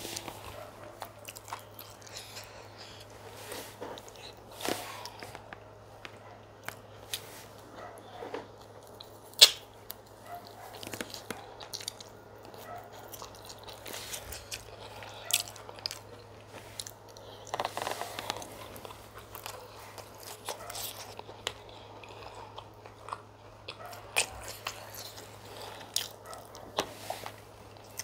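Close-miked eating of chicken pepper soup and fufu: chewing and biting, with irregular wet mouth clicks and smacks, the sharpest one about nine seconds in. A steady low hum runs underneath.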